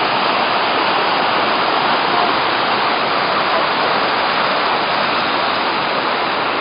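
Waterfall rushing close by, a steady loud roar of falling water.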